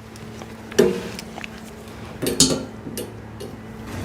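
Wrench tightening the nuts that hold the bottle jack on a hydraulic car ramp: a few separate metal clinks and knocks, over a faint steady hum.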